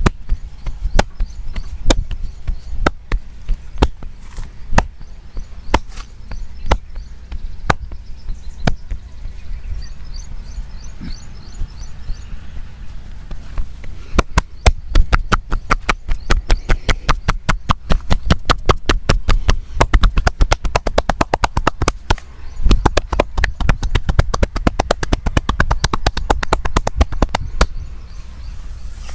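Percussive hand massage: palms and hand edges slapping and chopping on a person's body with sharp, thudding strikes. The strikes come scattered at first, then about halfway through they turn into a fast, even run of several strikes a second.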